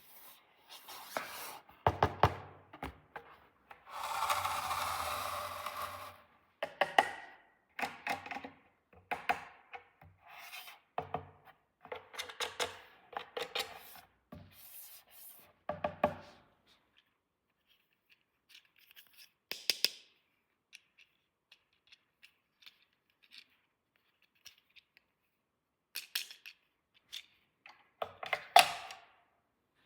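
Small plastic toy pieces and packaging being handled: clicks, taps and rustles, with a steadier noise lasting about two seconds some four seconds in.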